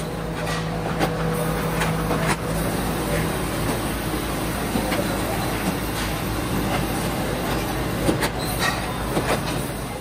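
Stator coil-winding machine running, its spinning flyer arm laying copper wire onto a ceiling-fan stator: a steady mechanical whir with scattered clicks and ticks, and a low hum that stops about three seconds in.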